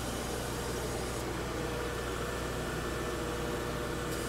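Electric band sawmill's 30-horsepower three-phase motor and hydraulic pump running steadily with a low hum, the blade not yet engaged. A steady higher whine joins about a second and a half in.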